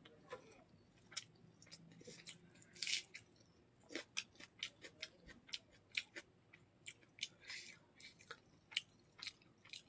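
Close-miked chewing of a mouthful of rice and chicken gizzard curry: irregular wet mouth clicks and smacks, several a second.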